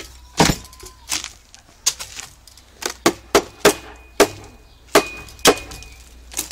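Bare steel BMX fork, with no wheel fitted, repeatedly banged down on a board by its dropouts: a string of about ten sharp metallic knocks, irregularly spaced, some with a brief ring.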